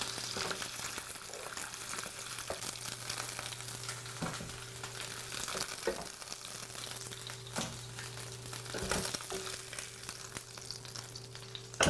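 Oil sizzling steadily in a hot frying pan, over a low steady hum, with a few soft knocks as browned lamb knuckles are moved from the pan into a slow cooker's ceramic insert.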